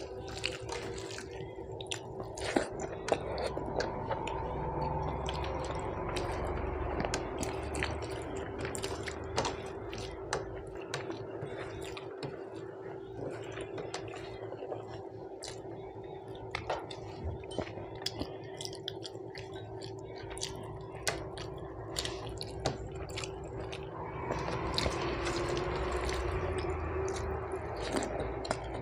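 Close-up wet eating sounds of a person eating rice with dal and fish curry: squishing, chewing and mouth clicks, with many short sharp clicks scattered through. A steady low hum runs underneath.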